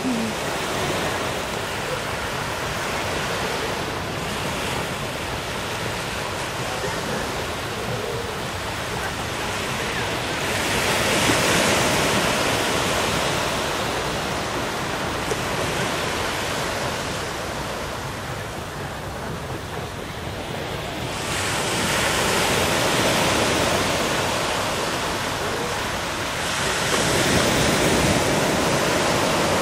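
Small waves washing onto a sandy beach, the surf swelling louder three times, with some wind on the microphone.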